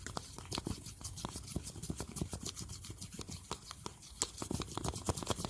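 A knife stirring slime mixture in a plastic cup: a continuous run of small irregular clicks and scrapes, several a second.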